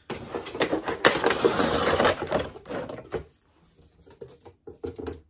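Cardboard box sliding up off a clear plastic display case: rustling and scraping for about three seconds, then a few light clicks and knocks of the packaging.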